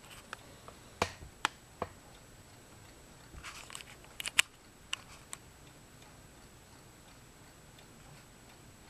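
Homemade Phoenix Stirling engine running with its crankshaft in new bearings, giving light sharp clicks at uneven intervals for the first five seconds or so, then only a faint steady background.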